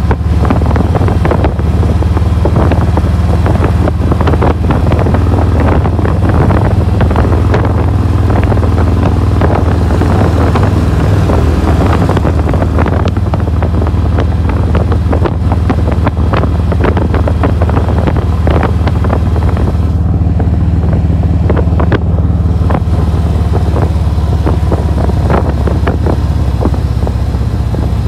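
Harley-Davidson touring motorcycle's V-twin engine running steadily under way, heard from the rider's seat with wind buffeting the microphone.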